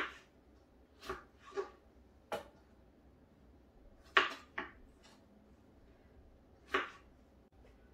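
Kitchen knife slicing fresh strawberries into small pieces on a plastic cutting board: about seven separate knocks of the blade on the board, at uneven intervals.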